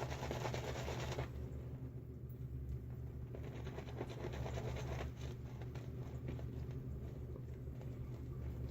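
Silvertip badger shaving brush swirling soap lather in a cupped palm: a continuous wet squishing and fine crackle of lather bubbles, over a steady low hum.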